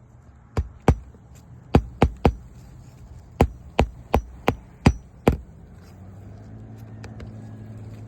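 Hammer driving roofing nails into asphalt shingles: about eleven sharp strikes in quick groups of two or three. A steady low hum comes in near the end.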